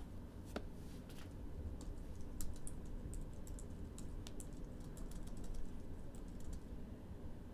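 Computer keyboard typing: irregular runs of soft key clicks, over a faint steady low hum.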